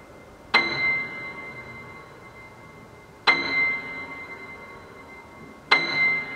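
Grand piano: a chord topped by a very high, bell-like note, struck three times about two and a half seconds apart. Each strike is left to ring and die away slowly.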